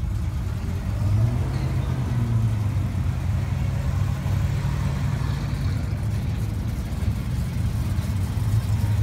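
Classic cars, a Mustang convertible and then a Chevelle SS, driving slowly past. Their engines give a steady low rumble that swells a little about a second in and again near the end.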